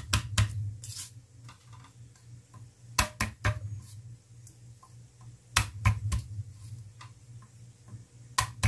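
Garlic cloves being broken off the bulb and handled with a kitchen knife on a wooden chopping board: sharp taps and knocks in small clusters of two or three, over a steady low hum.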